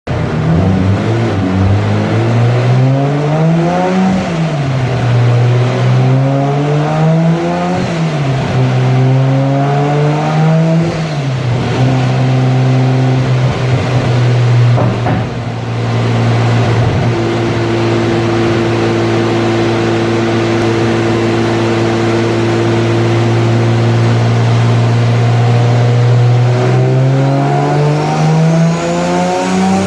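Nissan Skyline R32 GT-R's built RB26 twin-turbo straight-six running on a chassis dyno: revved up and let back down three times, then held at a steady engine speed with a brief break about fifteen seconds in, and climbing steadily in revs near the end as a pull gets under way.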